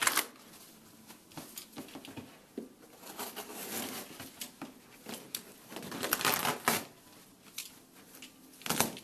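Razor knife cutting through carpet and its padding underneath, a series of short scraping, crackling strokes with sharp clicks between. The longest cuts come a little past the middle and just before the end.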